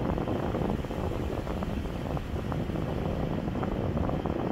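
Steady low rumble of a vehicle moving slowly, with wind on the microphone.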